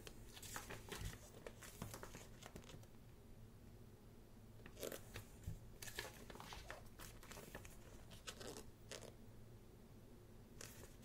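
Pages of a thick photo book turned by hand: paper rustling and flicking in several short spells with pauses between.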